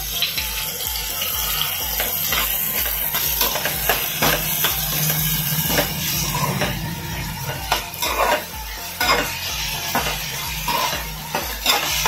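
A metal ladle stirring and scraping around a kadai, clinking against the pan again and again, while chopped onion, tomato and ginger-garlic paste sizzle in hot oil as the masala is sautéed.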